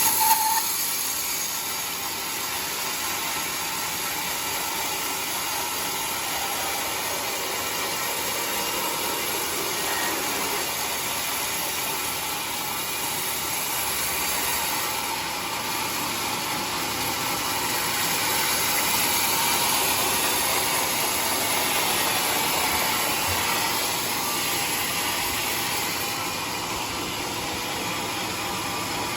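Homemade sawmill cutting through a large trembesi (rain tree) log, a steady hissing noise of the saw running in the wood that swells a little about two-thirds of the way through.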